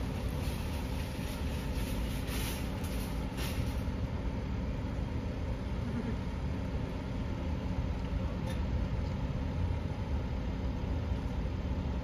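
Steady low mechanical hum with a few faint steady tones, and a brief hissing rush about two to three and a half seconds in.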